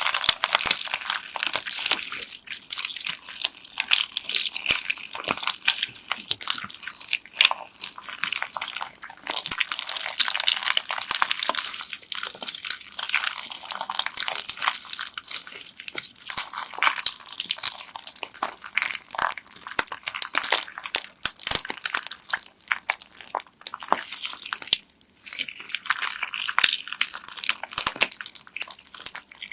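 Hands squeezing and kneading bead-filled slime: a dense, continuous run of crunchy clicks and crackles from the beads packed in the slime.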